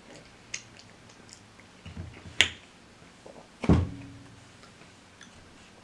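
Close-miked eating sounds of chewing fried chicken: scattered wet mouth clicks and lip smacks, with one sharp click about halfway through and a low thump a little after it.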